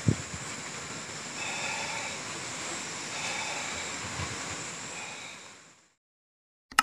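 Steady outdoor background hiss with low, uneven wind rumble on the microphone and a single low thump right at the start. The noise fades out to silence near the end, and a short, sharp ding sounds at the very end.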